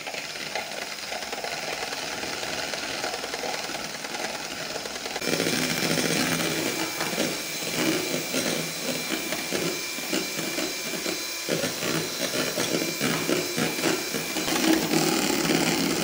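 Electric hand mixer running, its beaters whisking egg whites into a froth in a plastic bowl. The motor sound gets louder about five seconds in and carries a faint steady whine.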